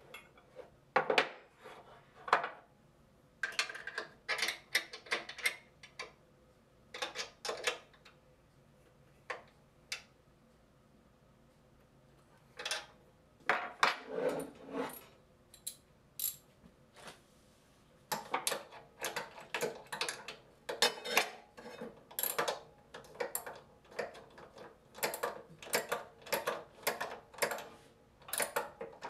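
Ratchet wrench clicking in short bursts of strokes as the band saw's drive-belt tension bolt is tightened, with a pause midway and a steadier run of strokes over the last ten seconds.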